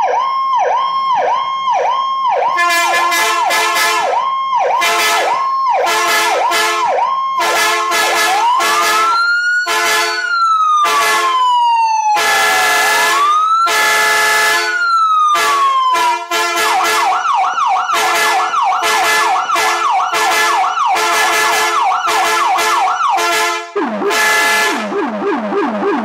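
Emergency-vehicle siren cycling through its tones: a fast yelp, then about eight seconds in a slow wail rising and falling twice, then a fast yelp again, dropping to a lower-pitched pattern near the end. Repeated short horn blasts sound over the siren about once a second.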